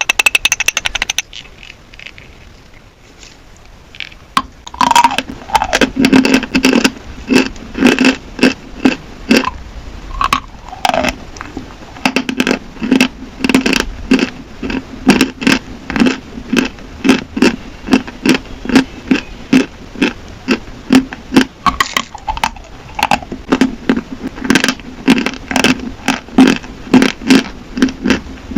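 Dry chalk being chewed close to the microphone: a brief flurry of crunches at the start, then after a short lull, steady crunching chews at about two a second.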